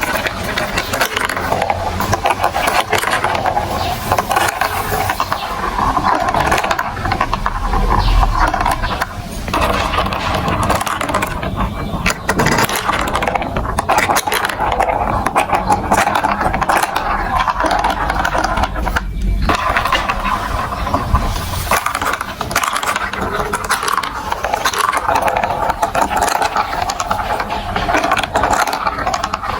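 Marbles rolling and clattering through a plastic building-block marble run, a steady rolling rattle dotted with many small clicks.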